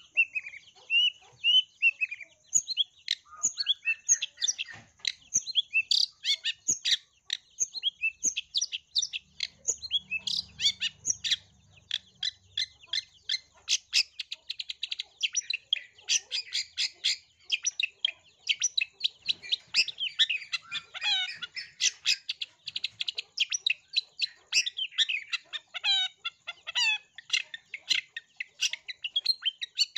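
Long-tailed shrike singing a fast, unbroken stream of varied chirps, trills and short whistles, packed with mimicked calls such as tree-sparrow chatter.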